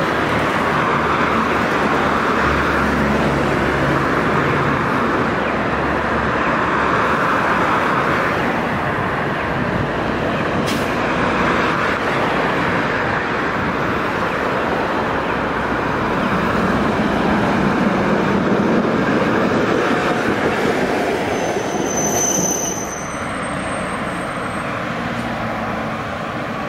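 Kumamoto City Type 0800 Bremen-type low-floor tram running along street track, a steady rolling rumble of its motors and wheels on the rails mixed with road traffic. A brief high-pitched squeal comes about three-quarters of the way through.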